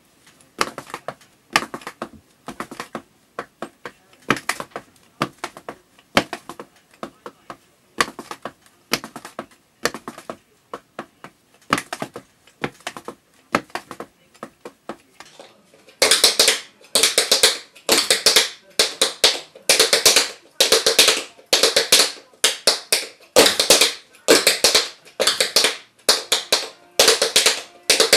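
Tap shoes' metal taps striking the floor in quick, rhythmic strings of clicks. For the first half they are softer and sparser on carpet; about halfway through they turn louder and denser on a hard laminate floor.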